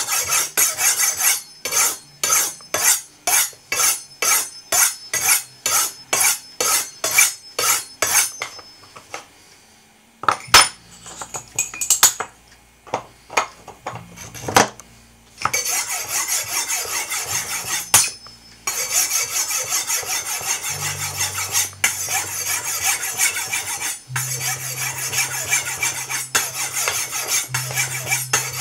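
Steel knife blade scraped along the ceramic rods of a Spyderco TriAngle Sharpmaker, in regular strokes about two a second for the first eight seconds. After a quieter stretch with a few sharp taps, rapid continuous scraping takes over from about fifteen seconds in.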